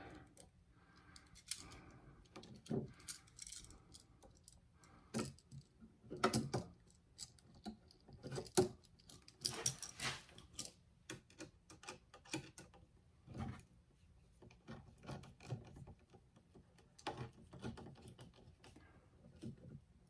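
Irregular small clicks, scrapes and metallic rattles of hands working a light switch, a screwdriver and copper wires at a metal electrical box, as the black wires are fastened to the switch terminals.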